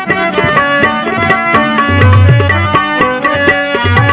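Instrumental interlude of an Odia devotional song: a melody instrument over hand-drum percussion, with a heavy low beat coming in about halfway through.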